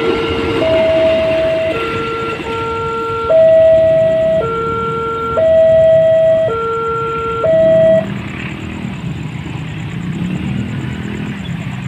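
Railway level-crossing warning alarm sounding two alternating electronic tones, about a second each, over the rumble of the last freight wagons passing. The alarm stops about eight seconds in as the crossing clears, leaving the low running of waiting motorcycle engines.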